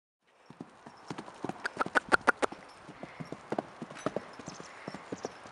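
Hoofbeats of a loose horse cantering on a sand arena: a quick, irregular run of strikes, most packed together about two seconds in.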